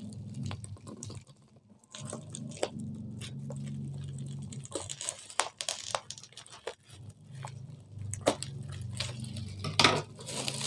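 Bubble-wrap packaging being handled and cut open with scissors: scattered crinkles, crackles and small sharp clicks over a low steady hum.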